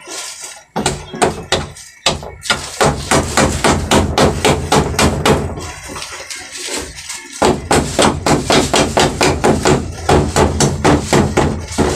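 A stone used in place of a hammer, striking nails into a plywood panel in quick repeated blows, several a second, with a short pause about six seconds in.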